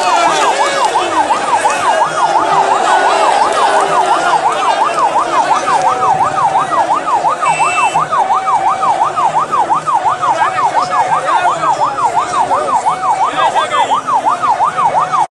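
Electronic vehicle siren in fast yelp mode, sweeping up and down about three to four times a second, over the voices of a large crowd. It cuts off suddenly near the end.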